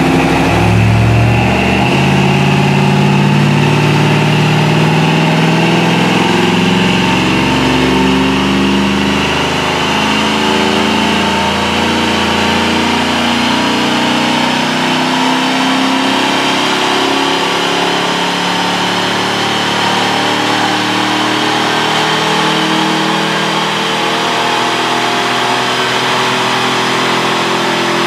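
2003 Chevrolet Silverado's stock 5.3-litre V8, with a BTR Stage 4 truck cam and a Flowmaster 40 series muffler, running on a chassis dyno. A high whine climbs slowly in pitch.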